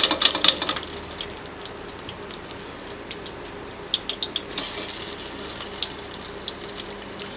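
Plantain slices sizzling and crackling in hot oil in a wire-basket frying pot. The crackle is densest in the first second as slices go in, and there is another burst about four to five seconds in as more are added.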